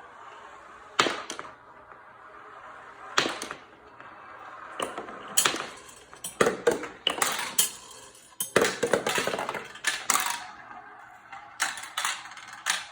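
A marble dropping and rolling through a homemade marble run, knocking and clattering against its parts in a string of sharp clicks and rattles, busiest from about five to ten seconds in.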